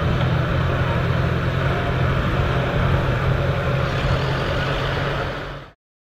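Massey Ferguson 35 tractor engine running steadily under load as it pulls a four-furrow plough through the soil. The sound fades and cuts off near the end.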